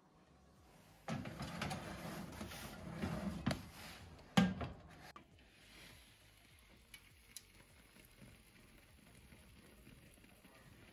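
Clattering of a round metal baking pan being handled into a tabletop convection oven, with a sharp clack about four and a half seconds in. A faint steady hiss follows, with a few light ticks.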